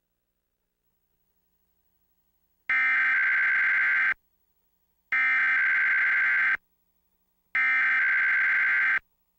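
Emergency Alert System SAME header: three identical bursts of harsh digital data tones, each about a second and a half long with about a second's pause between, the first coming nearly three seconds in. It is the coded header that opens an EAS Required Weekly Test.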